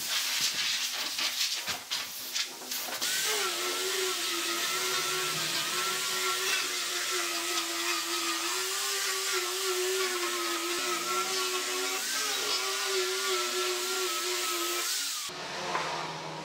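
Angle grinder with a sanding disc sanding the edge of a wooden panel. It runs as a steady, slightly wavering whine with a loud abrasive hiss, after a few seconds of irregular scraping at the start, and cuts off near the end.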